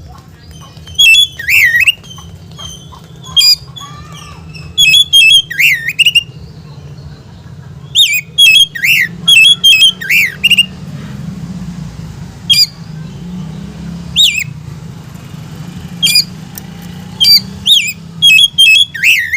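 Oriental magpie-robin (kacer) giving loud, sharp whistled call phrases in short clusters every second or two, each note sweeping quickly up and down in pitch. This is the aggressive 'ngobra' call used to provoke other male magpie-robins.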